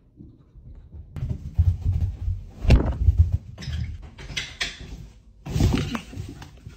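A run of heavy thumps and knocks from a man rushing through the house, then a loud thud with a rustle of bedding as he dives onto a bed, about two thirds of the way through.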